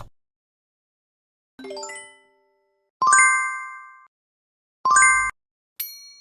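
A series of separate digital ding and chime sound effects with silence between them: a lower chime, then a bright ding ringing for about a second, a second ding that cuts off suddenly, and a higher ding near the end.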